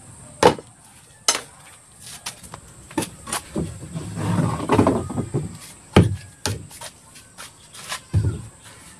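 Scattered sharp wooden knocks and clatter from hand work on a plank-built wooden boat hull, coming irregularly a second or two apart, with a rougher scraping stretch in the middle.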